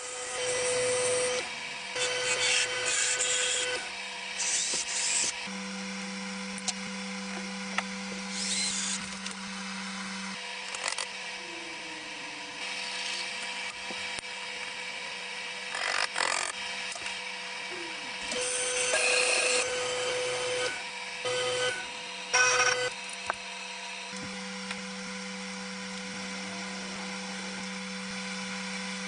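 A small power tool running with a steady hum, with louder, harsher bursts every few seconds as it works.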